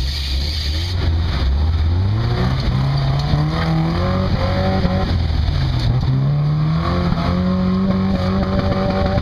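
Lifted pickup truck's engine revving under load as it climbs a muddy, rutted trail on oversized mud tyres. The revs rise over several seconds, drop back about five and a half seconds in, then climb again higher.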